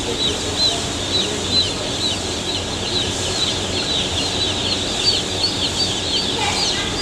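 A large crowd of newly hatched chicks peeping continuously, many high chirps overlapping, over a steady low hum.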